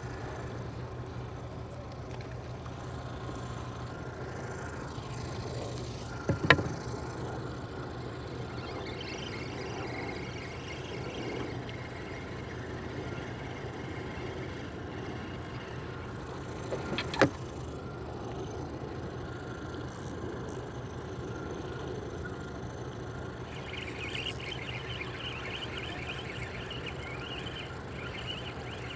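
A steady low motor hum, with two sharp knocks, one about six seconds in and one about seventeen seconds in. A thin, higher-pitched chattering sound comes in about nine seconds in and returns near the end.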